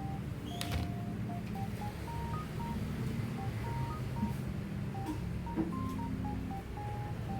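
Background music: a simple melody of plain, beep-like electronic notes stepping up and down over a low bass line, with a short click about a second in.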